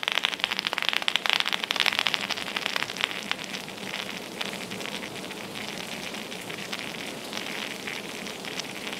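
Water from a pressure-washer lance raining down onto the cab roof of a John Deere 8260R tractor: a dense patter of drops and spatter, heavier for the first few seconds, then settling to a steadier, softer splashing.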